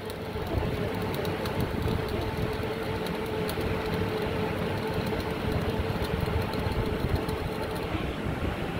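Truck-mounted borewell drilling rig running steadily, its engine and Doosan air compressor giving a constant hum with a steady mid-pitched tone. Faint irregular crackling ticks sound through most of it and stop near the end.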